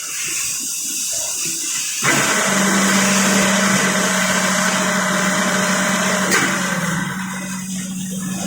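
Hydraulic unit of a rotary indexing table running with a steady hum. About two seconds in, a louder rushing hiss of flowing oil starts suddenly and lasts about four seconds, then stops with a sharp click.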